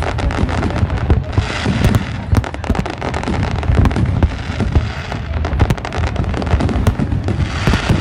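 A fireworks barrage: many aerial shells bursting in quick succession, dense overlapping bangs and crackles over a continuous low rumble.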